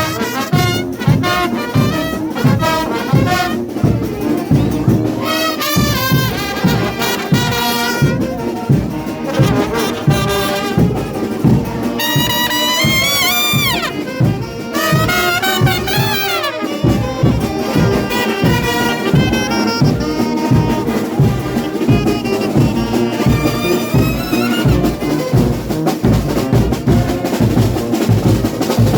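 Frevo brass band playing a fast tune, with trumpets and trombones over a steady drum beat and a quick high run of notes about halfway through.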